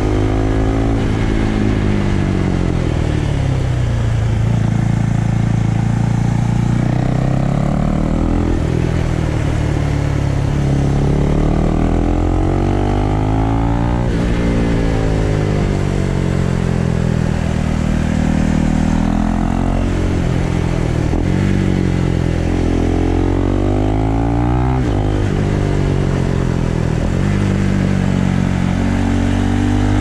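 Husqvarna Vitpilen 401's single-cylinder engine under way, heard from the rider's seat. The revs fall off and climb again several times as the throttle is closed and reopened through a string of bends.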